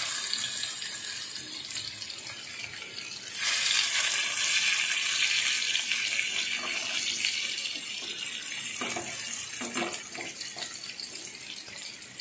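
Masala-coated fish steaks frying in hot oil in a shallow black pan: a steady sizzle that grows suddenly louder about three seconds in, as another piece goes into the oil, then slowly eases. A few light knocks near the end.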